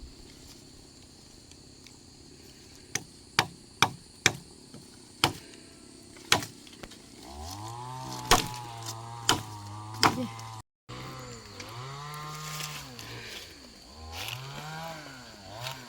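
About nine sharp knocks at uneven intervals. From about the middle on, a low pitched drone holds steady and then rises and falls in pitch several times.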